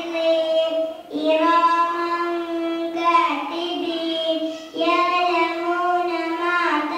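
A young girl reciting the Quran in a melodic chant, holding long steady notes, with short breaks between phrases about one, three and nearly five seconds in.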